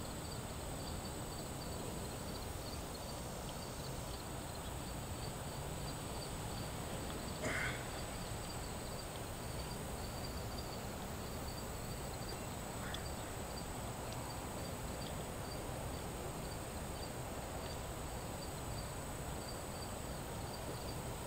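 Outdoor ambience: an insect, likely a cricket, chirping steadily at about two to three high chirps a second over a steady low background noise, with one brief sharp sound about seven seconds in.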